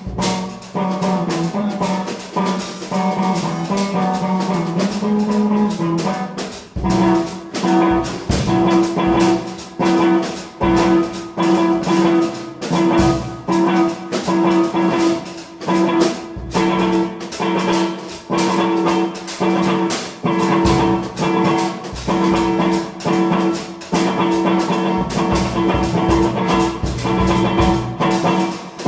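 Live duo of electric guitar and drum kit playing. The guitar repeats a pulsing figure over a steady drum beat, settling into one repeated note about seven seconds in.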